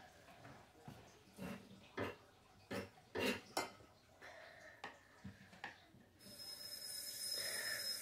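Eating sounds: a plastic spoon scraping and knocking on a plate, with mouth noises, as a run of short sounds between one and four seconds in. A steady high hiss with a thin whistle in it starts about six seconds in.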